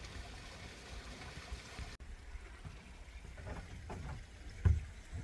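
Water rushing along a moving fishing boat with a low rumble. After a cut about two seconds in, it is quieter, with low knocks and one loud thump near the end.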